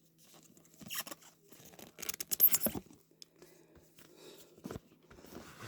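Rustling and light clicks of small books being handled, with the busiest burst of rustling about two seconds in.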